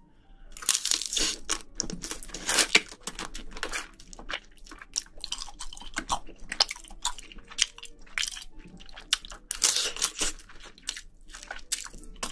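Close-miked chewing of spicy braised seafood and bean sprouts: a dense run of crunchy bites and chewing that begins about half a second in.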